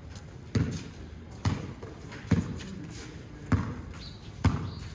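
A basketball bouncing on an outdoor concrete court, five dribbles about a second apart.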